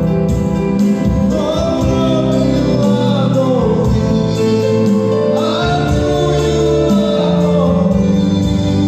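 Gospel music with singing: a sung melody over sustained keyboard chords and a steady beat.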